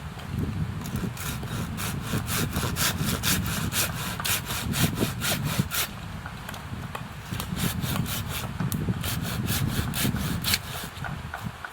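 Hand saw cutting wood in quick, even back-and-forth strokes, about four a second, with a short pause in the middle.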